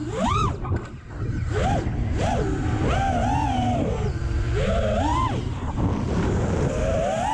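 Diatone GT R548 racing quadcopter's four Mamba 2207 2650 kV brushless motors and propellers whining. The pitch rises and falls again and again as the throttle is punched and eased through turns, over a steady low rumble.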